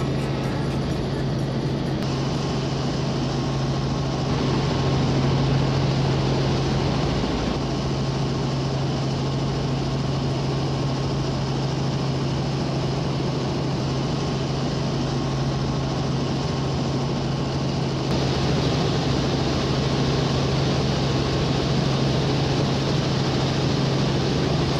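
Helicopter cabin noise in flight: a steady low hum from the engine and rotors over a constant hiss. The hiss grows louder about eighteen seconds in.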